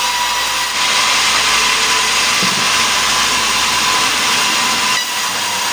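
Sawmill machine running and cutting mahogany into planks: a loud steady hiss of the saw with a faint whine, its low hum dropping away near the end.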